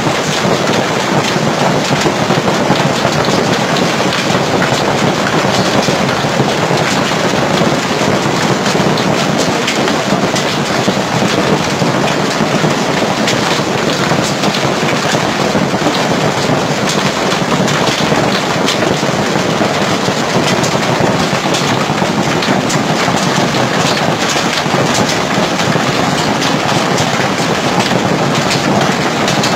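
Heavy hail mixed with rain falling in a thunderstorm onto a paved street and parked cars: a loud, steady hiss made of countless small impacts.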